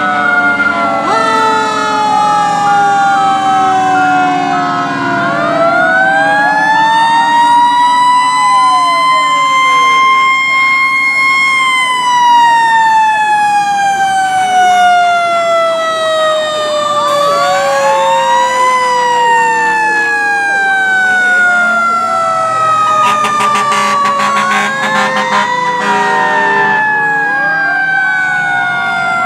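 Sirens of a procession of antique fire engines passing, several wailing at once: long rises over a few seconds and slow falls, the loudest peaking about eleven seconds in. Truck engines rumble underneath.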